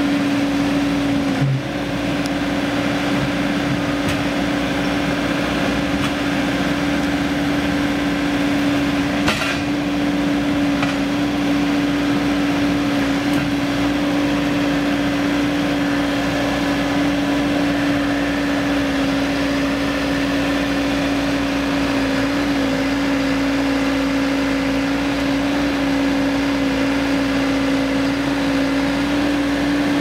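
Caterpillar backhoe loader's diesel engine running at a steady speed with a constant hum while the backhoe digs, with a brief knock about nine seconds in.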